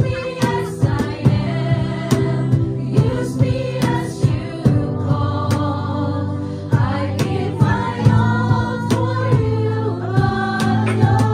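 Female worship team singing a gospel praise song into microphones, a lead voice with others harmonising, over live band accompaniment with a regular beat.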